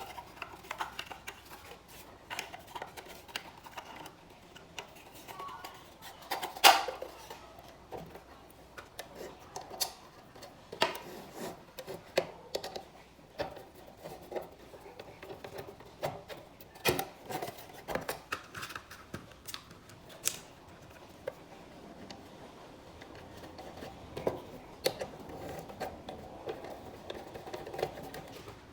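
Irregular clicks, taps and light scrapes of small hard objects being handled on a work surface, with one sharp knock about seven seconds in.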